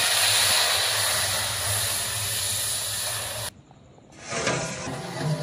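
Hot beef broth poured from an aluminium jug into a large aluminium cooking pot, a steady gushing hiss that cuts off abruptly about three and a half seconds in.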